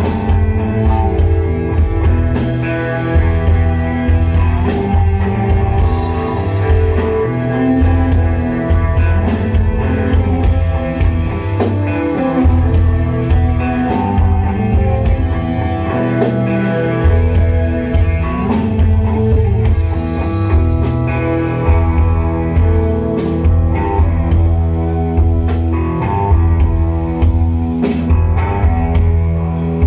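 Rock band playing live: guitar and drum kit over a heavy, sustained bass, the drums keeping a steady beat throughout.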